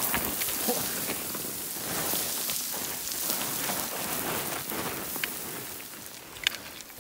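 Boots sliding and skidding down a loose scree slope, with gravel and small stones rattling and clattering in a dense patter. One sharper knock of a stone comes about six and a half seconds in.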